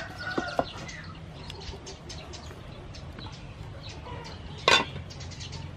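Chickens clucking in the background, with a couple of light knocks about half a second in and one short, loud clank about a second before the end as a stainless steel lid is set on a cooking pot.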